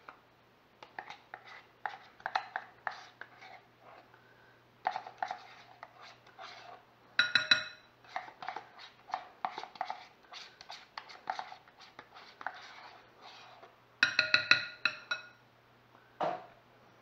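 Metal spoon scooping and scraping sour cream out of a plastic tub into a mixing bowl: a steady run of soft clicks and scrapes. Twice, about seven and fourteen seconds in, comes a quick burst of taps of the spoon against the bowl that ring briefly.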